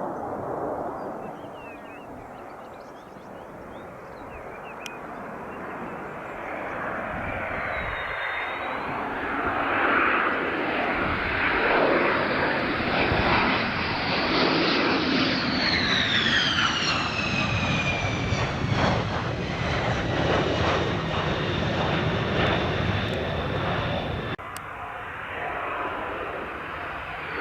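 Military fighter jet passing close on its landing approach. Its engine noise builds over several seconds, its high whine drops sharply in pitch as it goes by, and the noise runs on loudly until it falls away suddenly about three seconds before the end.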